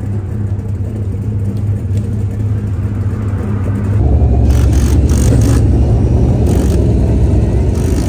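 Dirt modified race car engines running steadily with a low rumble that gets louder about four seconds in. Short bursts of hiss come several times in the second half.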